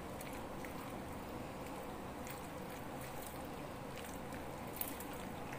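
Faint wet squishing of raw chicken pieces being stirred with cornflour and egg by a silicone spatula in a glass bowl, with a few light clicks and a soft knock near the end, over a steady low hum.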